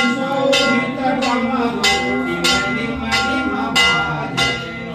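Temple bell rung in a steady rhythm, about three strikes every two seconds, each ring overlapping the next, with voices underneath.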